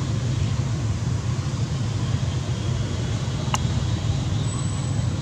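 A steady low rumble, with one short sharp click about three and a half seconds in.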